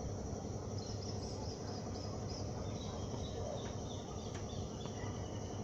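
Evening insects, crickets among them, trilling steadily and high-pitched, with a few short chirps in the middle and a low rumble underneath.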